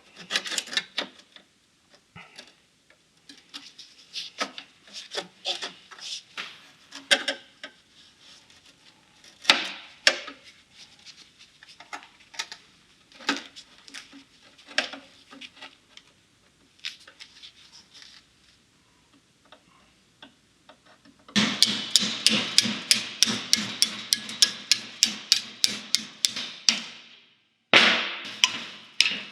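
Scattered light taps and knocks, then about two-thirds of the way through a fast run of hammer blows on sheet steel body panel, about five a second, with a short pause near the end before they resume.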